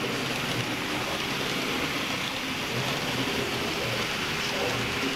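H0m-scale model of the Rhaetian Railway Bernina Express train running along the track: a steady rolling hiss with a faint low motor hum.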